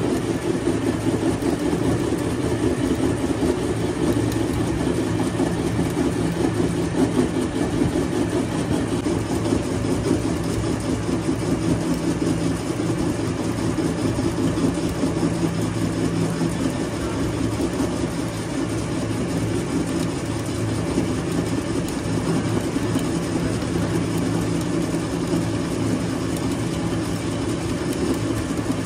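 A machine or engine running steadily with an unchanging low hum.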